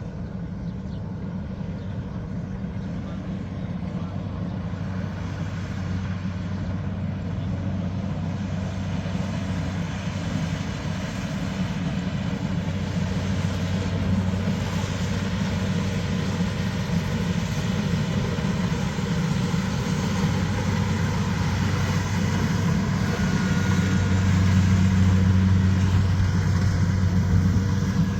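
A heavy vehicle's engine running steadily with a low hum, growing gradually louder.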